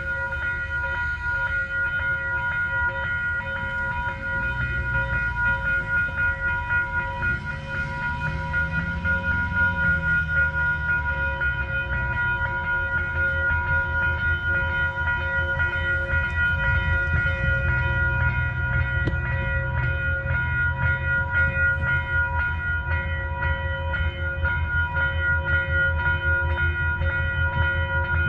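Diesel train locomotive running while stationary: a steady deep engine rumble with a fine regular pulse under several steady high-pitched whining tones. The engine pitch rises and falls briefly about eight seconds in.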